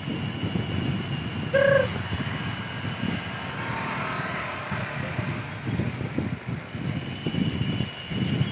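Wind buffeting the microphone of a moving bicycle rider, an uneven low rumble. A short single beep sounds about one and a half seconds in, and a faint engine swells and fades around the middle.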